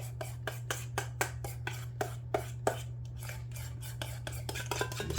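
Kitchen utensil clicking and scraping against a baking dish: a quick, uneven run of small knocks, several a second, over a steady low hum.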